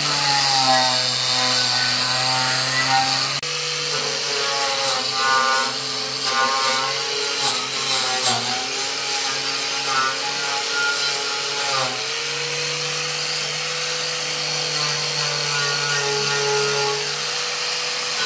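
Electric angle grinder with an abrasive disc running and grinding against wood. Its motor whine drops in pitch each time it bears down and picks up again as the load eases, with abrupt changes about three and a half seconds in and again near twelve seconds.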